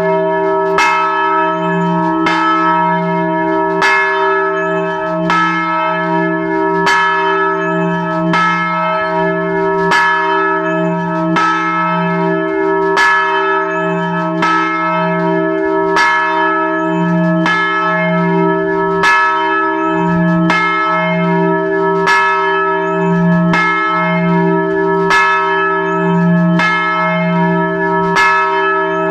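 Large church bell swinging and ringing, heard from right beside it in the belfry. The clapper strikes about every one and a half seconds, and each stroke rings on over a steady deep hum.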